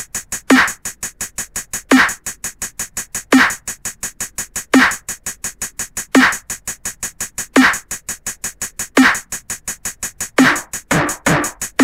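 Hardware drum-machine beat at 170 bpm from a Novation Circuit Tracks and Roland TR-6S, run through Kaoss Pad fuzz distortion. Fast steady hi-hat ticks, about five or six a second, with a heavy snare-like hit once a bar, about every one and a half seconds. A couple of extra hits come near the end as a small fill.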